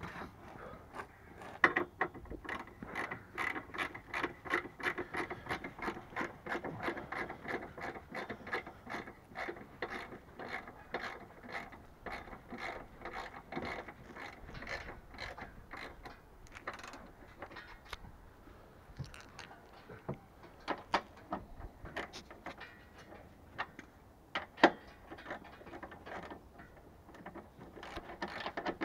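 Hand socket ratchet clicking as a bolt is turned, about three clicks a second in steady runs that thin out later. A few sharper knocks stand out, the loudest near the end.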